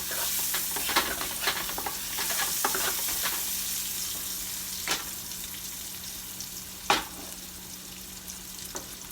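Chopped onions sizzling in butter in a frying pan, with a spoon clicking and scraping against the pan as they are stirred during the first few seconds. Two sharper knocks come about five and seven seconds in, the second the loudest.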